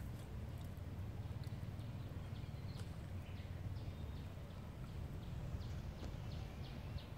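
Outdoor background with a steady low rumble and many short, high chirps or ticks, several each second.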